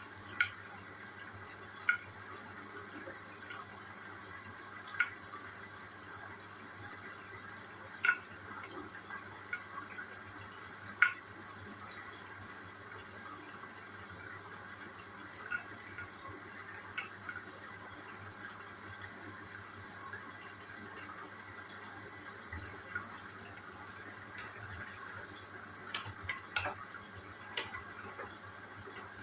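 Hoover All In One washing machine filling with water: a steady rush of inflowing water. Sharp clicks or knocks come every few seconds at first, with a small cluster near the end.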